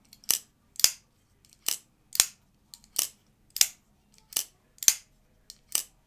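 Kizer Drop Bear folding knife being opened and closed over and over, its crossbar-type clutch lock giving a sharp, tactile click each time. There are about nine crisp clicks, mostly in pairs about half a second apart.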